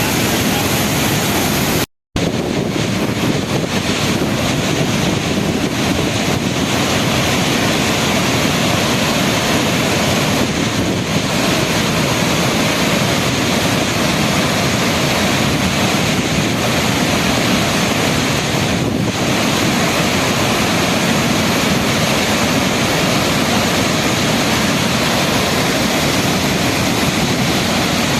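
Loud, steady rush of water jetting from a dam's relief valve, with a momentary break to silence about two seconds in.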